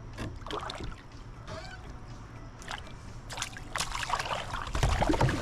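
Water splashing and sloshing at the side of a kayak, with a few knocks on the hull, while a hooked tarpon is fought close to the boat. It grows louder over the last second or so.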